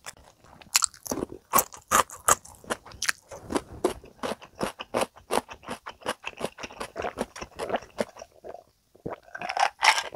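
Close-miked chewing of crispy fried chicken: a steady run of sharp crunches, several a second, as the crust breaks between the teeth. Near the end, a sip of iced cola from a glass.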